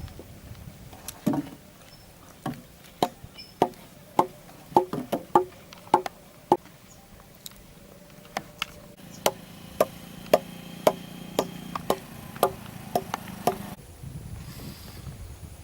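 Wooden stakes being hammered into an earth bank: a run of sharp, ringing knocks, roughly two a second and unevenly spaced, with a pause of about two seconds near the middle.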